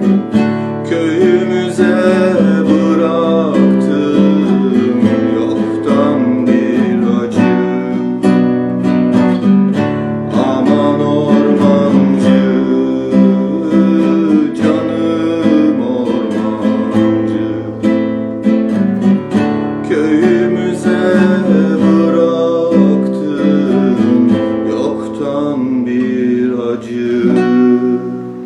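Plucked string instrument strummed and picked through an instrumental passage of a Turkish folk tune (türkü), with dense plucked notes over a steady low drone. It begins to fade near the end.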